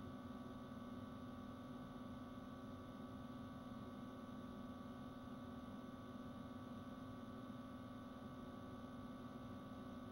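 Faint steady hum with a low hiss; nothing else is heard.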